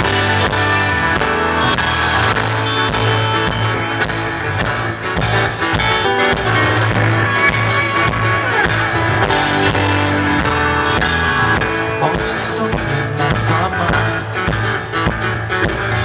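Live pop-rock band playing: guitar over a drum kit and a steady low bass line, loud and continuous.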